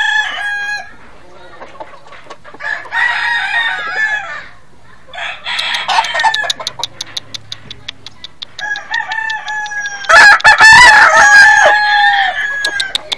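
Spangled Butcher gamecock crowing several times. The longest and loudest crow, about two and a half seconds long, comes about ten seconds in. A fast run of clicks sounds through the second half.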